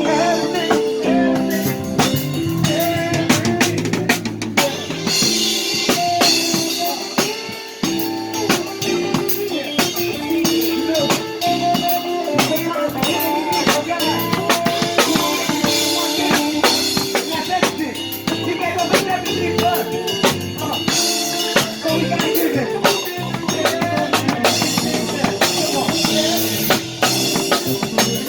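Live band playing an instrumental passage without vocals, the drum kit prominent with snare and bass drum over sustained pitched instruments. Cymbals wash in about five seconds in and again after about twenty seconds.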